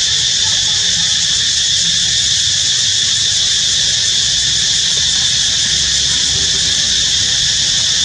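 Steady, loud, high-pitched insect chorus drone, unbroken, over a low rumble.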